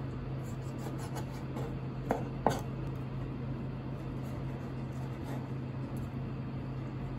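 A kitchen knife cutting raw turban shell meat on a plastic cutting board: soft small cutting ticks and two sharp taps of the knife or shell about two seconds in, half a second apart, over a steady low hum.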